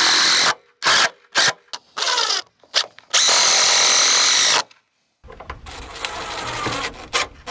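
Cordless drill driving screws into a wooden post. It makes two longer runs of a second or more, with several short bursts of the trigger between them, then stops about five seconds in. After that come quieter clicks and handling noise.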